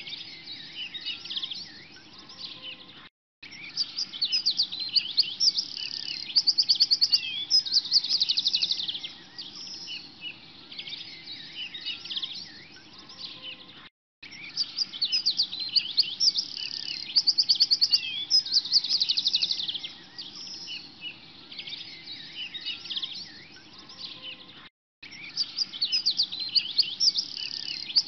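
Many small birds chirping and trilling together, from a birdsong recording that loops about every eleven seconds, with a brief silent gap at each loop point.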